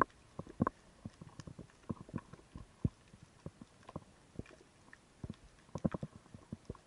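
Irregular muffled knocks and clicks heard underwater, with a cluster of louder knocks about six seconds in.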